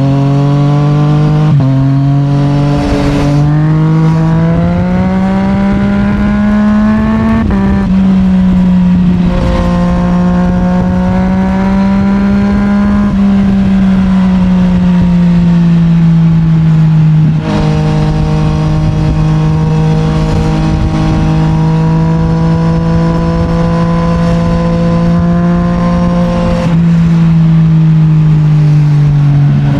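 Yamaha MT-09's 890 cc CP3 inline-three engine running through an Akrapovic full titanium exhaust under way. The engine note climbs as the bike accelerates and drops sharply at two upshifts, then holds at a steady cruise.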